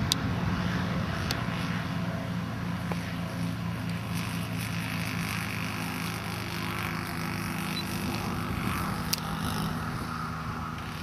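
Model aircraft engine, an ASP 400 converted from glow to petrol with a Walbro carburettor, running steadily in flight as the plane comes in low. A few faint sharp clicks come at the start, about a second in, and again near nine seconds.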